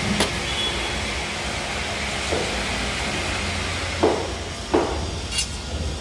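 A few short knocks and clicks over a steady low rumble and hiss, as a slotted steel channel bracket is fitted and bolted to a wall.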